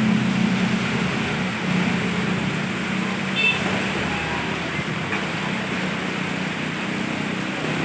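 Road traffic in the rain: a steady hiss with a low engine hum, and a brief high squeak about three and a half seconds in.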